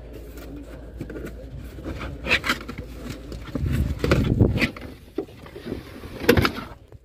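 Handling sounds in a car boot: a hand brushing over the rubber boot liner and lifting the floor carpet, giving a few soft knocks and scrapes, with a low rumble about four seconds in.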